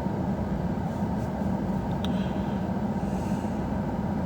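Steady low rumble of a running vehicle, even throughout, with a faint click about two seconds in.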